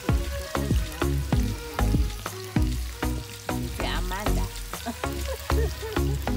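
Bacon sizzling in a frying pan over a wood fire, under music with a steady beat of about two a second and a deep bass line.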